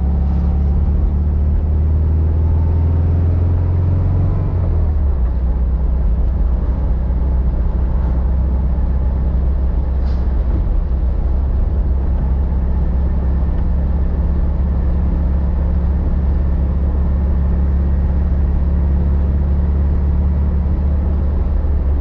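Vintage VW Beetle's 36hp air-cooled flat-four engine running steadily as the car is driven, a continuous low drone. Its pitch rises slightly over the first few seconds, then drops about four and a half seconds in, and it holds steady after that.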